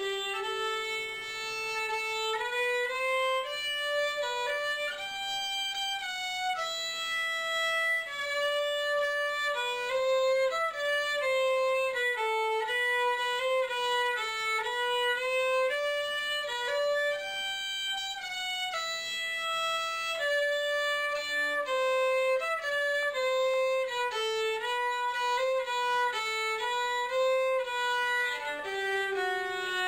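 Solo fiddle (violin) bowed, playing a continuous melody that steps from note to note without a break.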